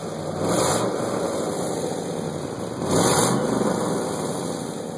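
1999 Chevy Silverado 1500 engine running through an exhaust with its catalytic converters removed and patched over and a stock muffler, swelling in loudness twice, about half a second in and again about three seconds in, as if briefly revved.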